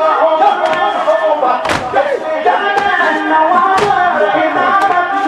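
A crowd of mourners chanting a latmiya in unison. Twice, about two seconds apart, the crowd lands a loud thump together, the rhythmic beating of chests that keeps time with the chant.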